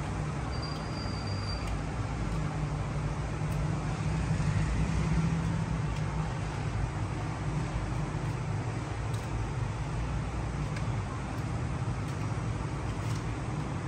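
Steady low background rumble with an even hiss, a little louder about four to five seconds in. A brief thin high tone sounds for about a second near the start.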